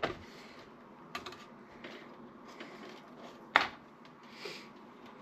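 Scattered clicks and knocks of a desktop computer being handled and taken apart, with a louder knock about three and a half seconds in.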